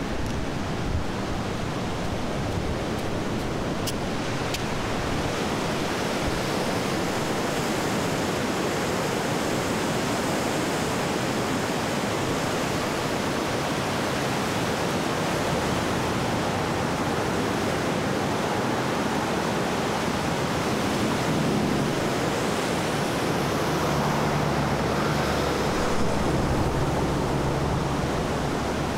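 Steady rush of the flood-swollen Winooski River churning below. Passing traffic adds a low engine hum in the last several seconds.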